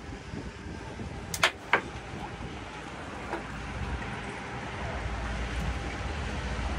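Steady wind and water noise on an open boat, with two sharp clicks about a second and a half in and a fainter one a little later. A low rumble grows louder toward the end.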